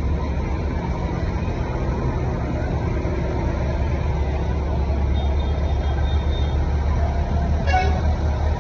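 Diesel engines of large farm tractors running steadily as they drive past close by, one after another, a continuous low rumble. There is one short sharp click near the end.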